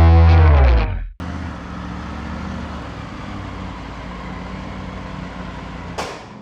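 A loud music chord dies away and cuts off about a second in, followed by a Triumph Tiger motorcycle's engine running steadily with wind and road noise. A sharp click comes near the end, after which it goes quieter.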